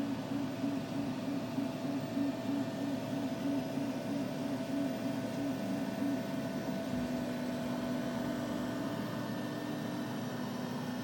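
Steady machine hum with a low drone that pulses a few times a second, turning to an even drone about seven seconds in, over a faint steady higher tone.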